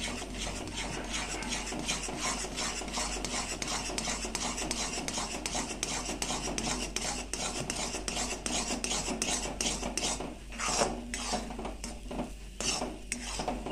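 Metal spatula stirring and scraping thick semolina-and-milk sheera around a metal kadhai in quick repeated strokes. Near the end come a few louder, more widely spaced scrapes as the semolina, having soaked up the milk, turns into a soft, thick mass.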